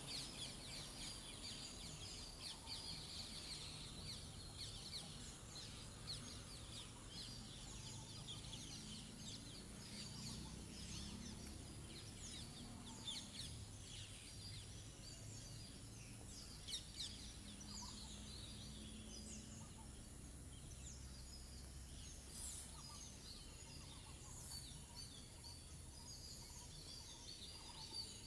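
Faint birdsong: many short chirps from several birds over a steady high hiss.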